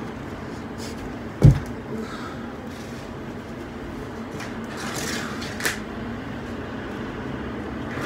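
Steady low room noise with one heavy thump about a second and a half in, then a short scraping rustle around five seconds.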